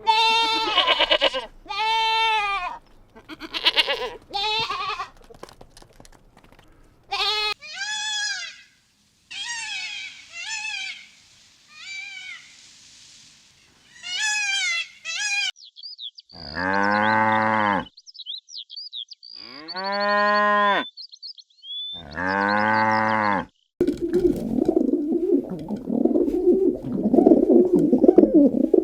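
Farm livestock calling: a run of short bleating calls that rise and fall, then three long, deep cattle moos a little past halfway. Near the end a different, steady dense sound takes over.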